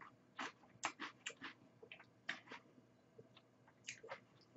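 Faint, quick wet mouth clicks and smacks of someone eating ice cream, several a second, thinning out around the middle.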